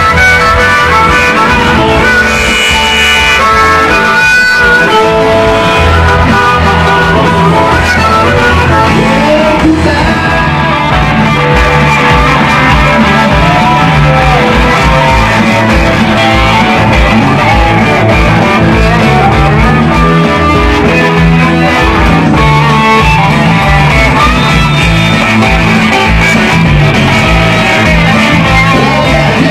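Live rock band playing an instrumental stretch: electric guitars over bass and drums, with a harmonica played into a vocal mic near the start.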